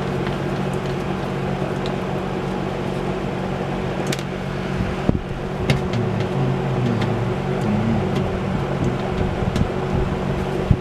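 Steady machine hum with several low held tones, like a running motor, broken by a few light clicks and taps.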